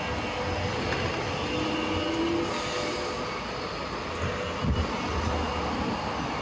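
Steady rumble of a passing vehicle, with a brief faint whine about two seconds in.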